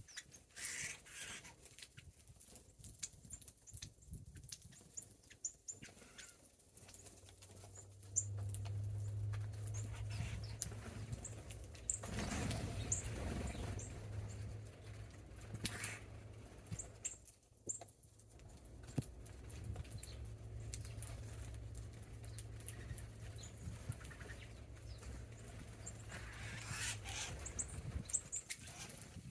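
Small birds feeding, with scattered short high chirps and light pecking ticks. A steady low hum joins them about a quarter of the way in and stops near the end.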